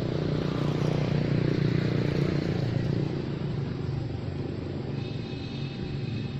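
A motor vehicle's engine running, a steady low hum that grows louder about a second in and then eases off, like a vehicle passing by.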